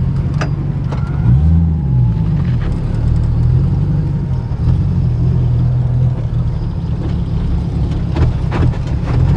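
Car engine running loudly, its revs rising and falling about a second and a half in, then wavering, with a few sharp clicks near the end.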